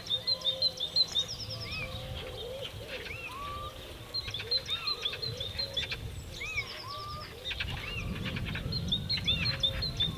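Several songbirds chirping and singing together, with quick runs of short high notes and little rising-and-falling whistles. Underneath is a low rumbling noise that grows stronger near the end.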